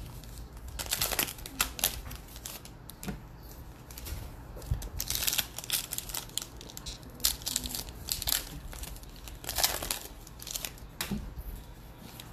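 Foil wrappers of 2020 Bowman baseball card packs being torn open and crinkled by hand, in short irregular bursts of crackling.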